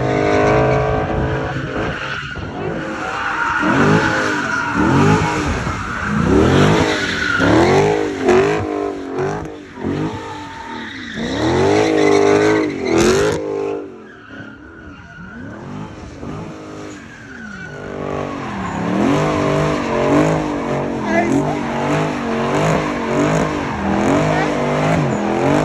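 Car doing donuts, its engine revving up and down over and over while the rear tyres spin and skid on the pavement. About halfway through the engine drops back briefly, then holds at steadier high revs with the tyres skidding.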